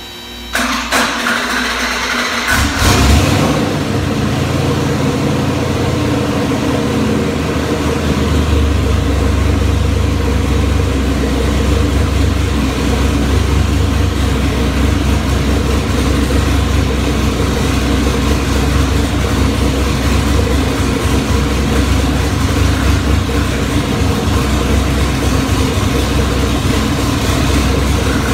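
Twin-turbocharged 4.8-litre LS V8 starting up for the first time on the dyno: the starter cranks for about two and a half seconds, then the engine fires and runs at a steady idle.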